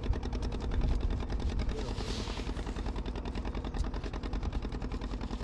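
Boat engine running steadily with a rapid, even pulse.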